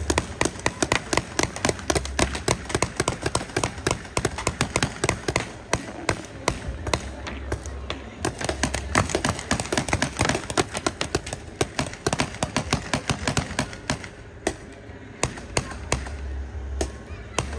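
Paintball markers firing in rapid, overlapping pops, several shots a second, thinning out briefly about three-quarters of the way through.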